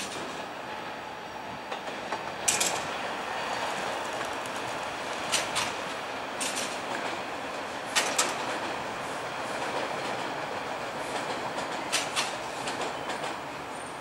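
TTC T-1 subway train running past with a steady rumble of steel wheels on rail. Sharp clacks, several in quick pairs, come as the wheels pass over the track joints.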